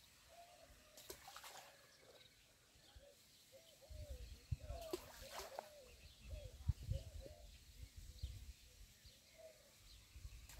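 Groundbait balls thrown into the water, landing with a few faint splashes, among repeated short bird chirps and a low rumble that starts partway through.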